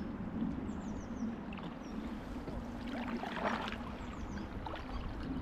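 Canoe paddle strokes through river water, with a louder splash about three seconds in, over a steady low rumble. A few faint, short, high falling bird chirps come and go.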